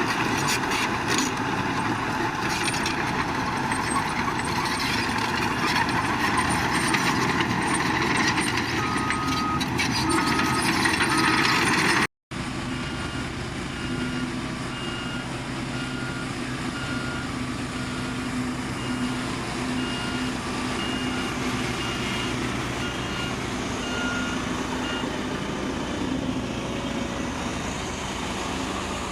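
Diesel engine of heavy earthmoving equipment running, with a reversing alarm beeping: a few beeps before a brief cut, then a steady run of beeps about once a second that stops a few seconds before the end.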